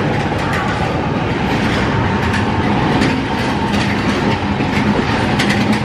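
Tomorrowland Transit Authority PeopleMover car running along its elevated track, heard from on board: a steady rumble with a faint hum and scattered clicks. The cars are moved by linear induction motors set in the track.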